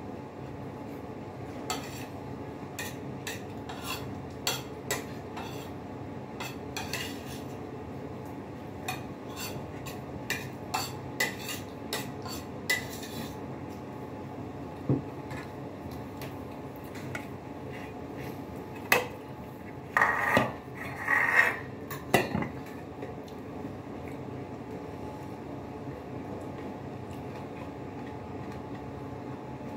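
Metal fork and spoon clicking and scraping against a ceramic plate while eating: scattered light clicks through the first half, a louder clatter of several clinks about two-thirds of the way in, then quiet. A steady low hum runs underneath.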